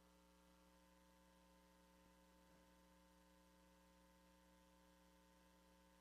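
Near silence: a faint, steady electrical hum.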